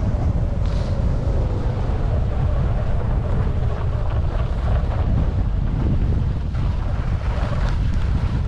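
Wind buffeting an action camera's microphone during a fast downhill ski run, a steady low rumble, with the K2 skis hissing and scraping over packed, groomed snow.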